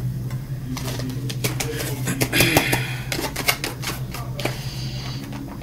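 Quick clicks, taps and rustles of a plastic food container being handled and opened, over a steady low hum.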